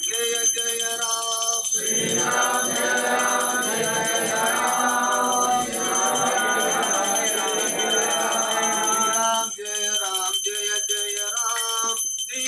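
Men's voices chanting a prayer in unison: a few voices at first, the full group joining in about two seconds in, thinning again near the end.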